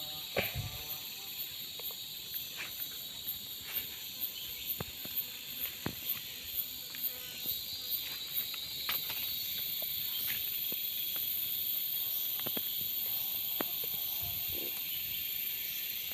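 Thin wooden sticks being pressed into loose soil and handled as the floor of a snare is laid: a run of light knocks and scrapes, about two a second, thinning out after about nine seconds. A steady high hiss runs underneath.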